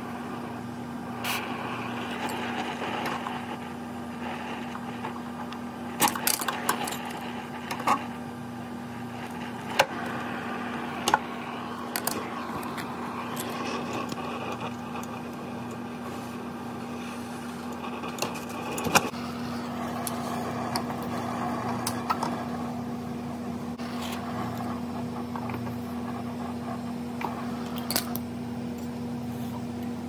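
Torch flame hissing steadily as copper refrigerant lines are heated off a refrigerator compressor, over a constant low hum. Scattered sharp metallic clicks and taps from tools and tubing, the sharpest a little under halfway through.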